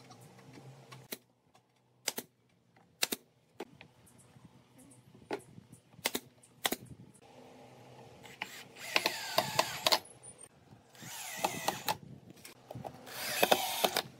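A few sharp knocks as wooden parts are fitted together, then a cordless drill-driver running in three bursts, its motor pitch shifting as it drives wood screws into the wooden seat.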